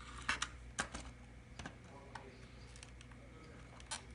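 Small sharp clicks and taps of metal tweezers working wire connectors loose from a battery pack's control board. There is a quick cluster in the first second, a pair more a little later and another click near the end.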